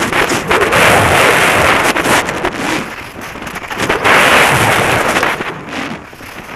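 Wind rushing over a helmet-mounted camera's microphone on a fast giant slalom ski run, mixed with the skis' edges scraping across hard-packed snow. The noise swells and fades in waves every couple of seconds, turn by turn.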